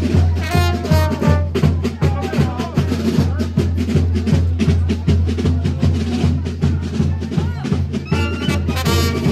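Marching brass band playing a lively tune, trombones and trumpets over a steady bass drum and snare beat. The horns stand out at the start and come back near the end, with mostly drums in between.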